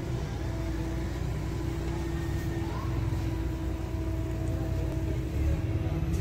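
Steady low rumble of a running engine, with a constant hum that does not change over the few seconds.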